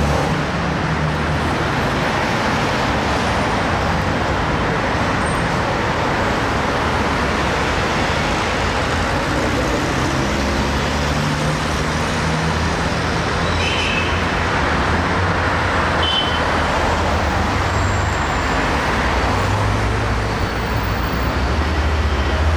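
Road traffic on a city street as a motorcade of police cars and SUVs drives past and pulls up: a steady wash of engine and tyre noise with a low engine hum. Twice, a little past halfway, there is a brief high chirp.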